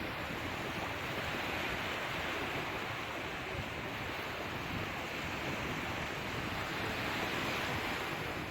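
Sea surf washing on a shore, a steady, even wash of noise without distinct breaking waves.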